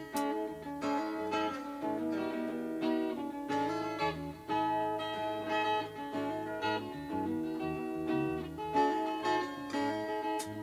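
Guitar music with no singing: picked and strummed guitar notes over a moving low line.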